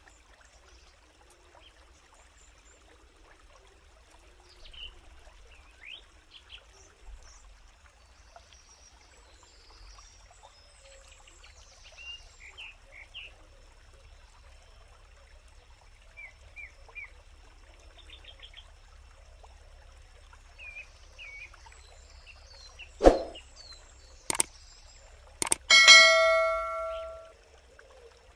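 Birds chirping now and then over quiet forest background. Near the end comes a subscribe-button sound effect: sharp mouse clicks, then a bell ding that rings out and fades over about a second and a half.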